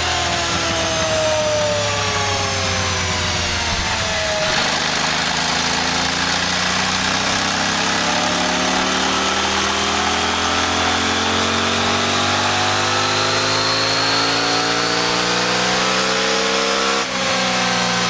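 KTM 790 Adventure R's parallel-twin engine through its stock muffler, running on a dynamometer under brake load, with drum, drivetrain and tyre noise mixed in. The engine note falls for the first few seconds, changes suddenly, then climbs steadily for about twelve seconds before dropping abruptly near the end.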